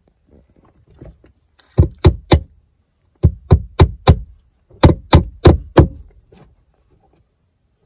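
Hammer driving cable staples to fasten new electrical cable in place: eleven sharp strikes, about three a second, in three quick runs of three, four and four.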